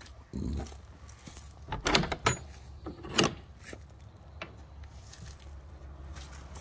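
A door being unlocked and opened: keys and lock rattling, with a few loud clunks and scrapes about two and three seconds in.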